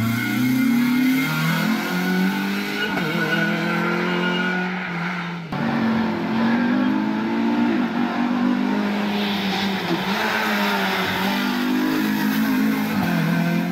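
Renault Clio Cup race car's four-cylinder engine revving hard under full acceleration, its pitch climbing and dropping back again and again with the gear changes. The sound cuts abruptly about five and a half seconds in, and the same engine picks up again at high revs.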